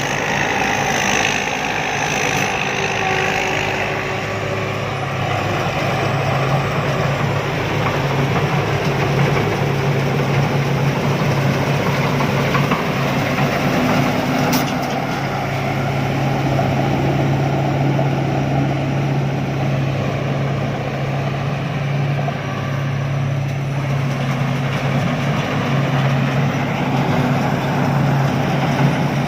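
Rice combine harvester running steadily, its engine giving a constant low drone.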